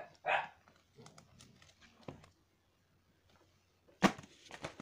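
A short bark-like sound just after the start, then faint clicks and a sharp, loud knock about four seconds in, with a few smaller knocks after it, as the phone is handled and moved.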